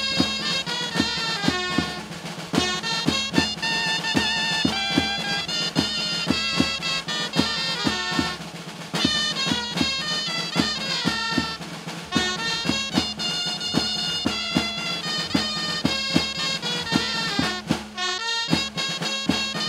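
Dulzainas playing a jota melody over a steady snare-drum beat.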